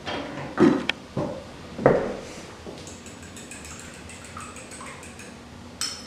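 A fork beating an egg in a small glass bowl, its tines knocking against the glass: a few sharp knocks in the first two seconds, then lighter taps, and one more click near the end.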